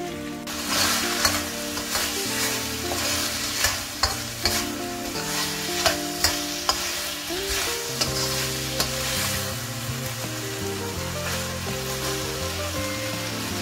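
Food sizzling in a hot steel wok as a metal spatula stirs it, clinking and scraping against the wok several times in the first nine seconds or so. Calm background music runs underneath.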